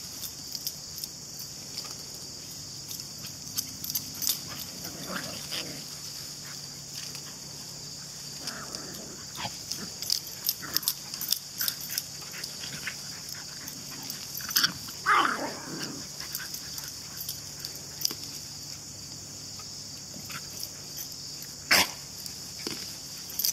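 Puppies at play, yipping and growling, with short sharp barks here and there. The loudest moments are a drawn-out yelp about two thirds of the way through and a sharp bark near the end.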